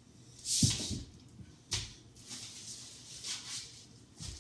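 Food packaging being handled and set into plastic fridge bins: a loud rustle with a knock about half a second in, a sharp click, softer rustling, and another knock near the end.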